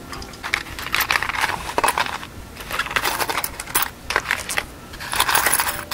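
Earrings clinking and jingling against each other as fingers rummage through a jewelry box full of them: runs of small irregular clicks and rattles in several clusters.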